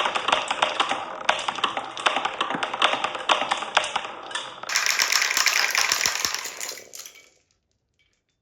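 Marbles rolling and clacking down a HABA wooden slope marble run: a rapid, dense rattle of small knocks. It gets louder about five seconds in, then dies away a couple of seconds later.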